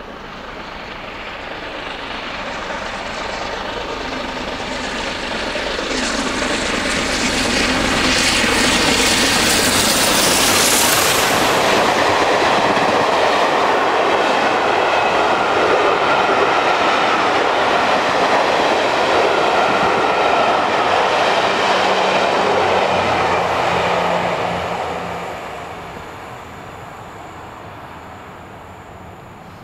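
BR Standard Class 8P three-cylinder Pacific steam locomotive 71000 "Duke of Gloucester" and its coaches passing at speed: the sound builds as the engine approaches, peaks as it goes by about ten seconds in, stays loud while the coaches run past on the rails, then fades near the end.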